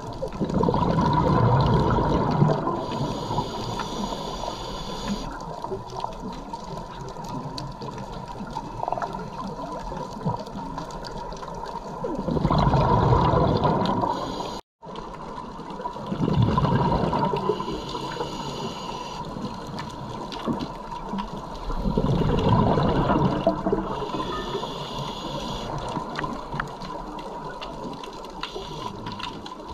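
Scuba diver breathing through a regulator underwater: several bursts of bubbling exhalation, each followed by the hiss of an inhalation, repeating every several seconds.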